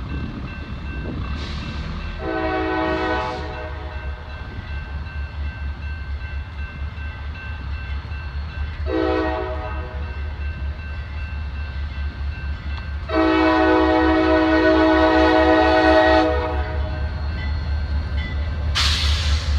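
CSX diesel locomotive's multi-chime air horn sounding for a grade crossing: two short blasts, then one long blast of about three seconds, over the low rumble of the approaching locomotive. The crossing signal bell rings steadily underneath.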